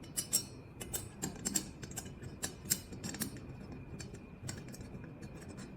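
Irregular light clicks and taps of small metal handle-mounting hardware, connecting pieces and a bolt, being handled and fitted into place, thickest in the first three seconds and sparser after.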